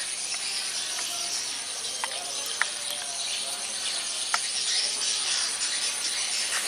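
Steady outdoor ambience among vegetation: an even hiss with a continuous high thin whine over it, broken by a few short clicks, two of them sharper, a little over two and a half seconds and about four and a half seconds in.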